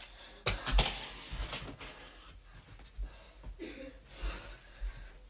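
Light clacks and knocks of plastic glow sticks being tossed, caught and knocked together while juggling, with two sharper knocks about half a second in and scattered quieter ticks after.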